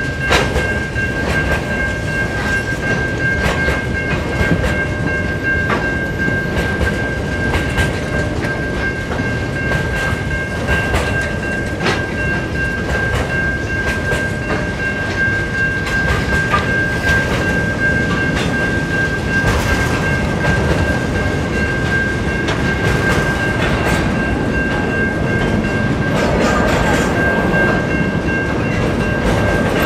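A freight train's wagons rolling past close by: a steady rumble of steel wheels on the rails, with repeated clicks as the wheels cross the rail joints, and a steady high ringing tone over it.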